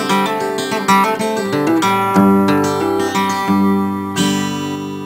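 Acoustic guitar music: a run of picked notes, then a final chord struck about four seconds in that rings out and fades.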